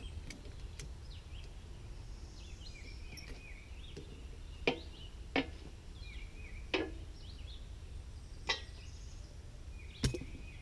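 Quiet outdoor ambience: small birds chirping on and off over a low steady rumble, broken by five sharp clicks or knocks at uneven intervals, the loudest near the middle and near the end.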